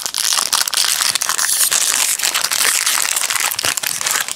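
Foil wrapper of a Topps Bazooka trading-card pack crinkling and tearing as it is ripped open by hand and the cards are pulled out: a loud, continuous run of dense crackles.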